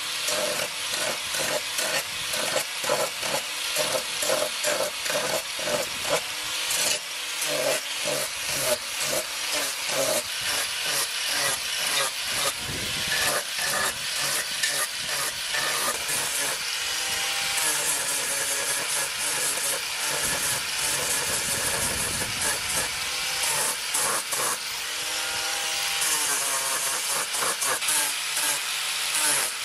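Electric grinder with a sanding pad sanding down wooden knife-handle scales, the disc rasping against the wood. It works in quick strokes early on, then runs more steadily with the motor's pitch dipping and recovering as it is pressed into the wood.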